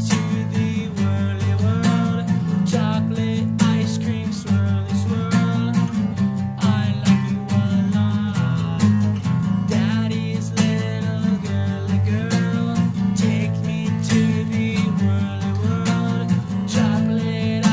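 Music featuring guitar, with a steady beat.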